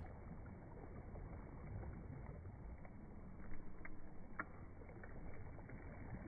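Faint, dull lapping of lake water as a dog swims, with a few small splashes near the middle.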